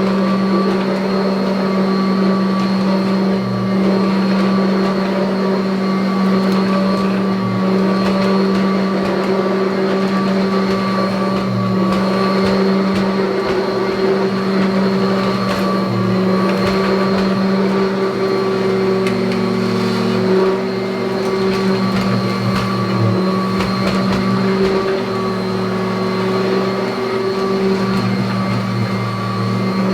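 1984 Kirby Heritage upright vacuum cleaner running: a steady motor hum with a high whine above it, shifting slightly in pitch now and then.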